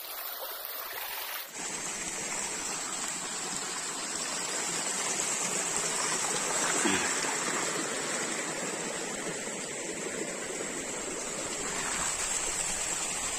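Shallow stream rushing and splashing over rocks, a steady even rush of water. The sound changes abruptly about a second and a half in, then runs on steadily.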